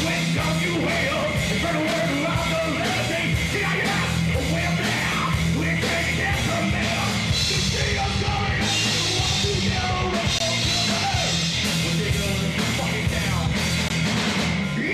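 Live metal band playing loud and continuously: electric guitars, bass and drums, with a singer's vocals over them.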